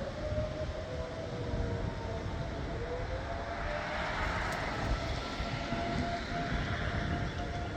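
Several outdoor warning sirens wailing at the same time in the distance, sounding a statewide tornado-drill test. Their overlapping tones slowly rise and fall over a steady low rumble, and a hiss swells up in the middle.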